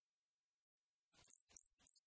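Near silence: faint steady hiss, with four or five faint short ticks in the second half.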